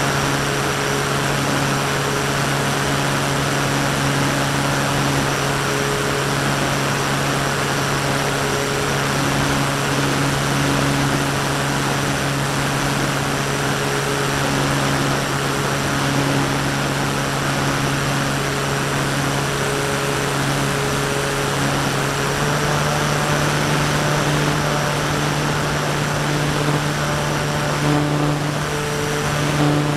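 Brushless electric outrunner motor and propeller of a Parkzone Radian RC glider running steadily under power, heard from on board, with a steady hiss of air. The motor's pitch steps up slightly about two-thirds of the way through.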